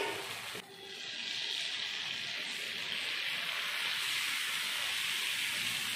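Dosa batter sizzling on a hot dosa griddle as it is spread out with a ladle: a steady hiss that drops away suddenly about half a second in, then builds back up and holds.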